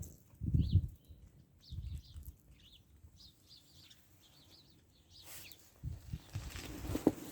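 Small birds chirping in quick, high, repeated notes for the first few seconds, over several loud, low, muffled rumbles near the start and again in the last second or so.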